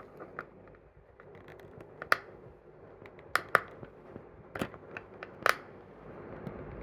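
A handful of sharp, separate clicks and taps as screwdrivers and a toy car's plastic packaging are handled, ready to unscrew the car from its base.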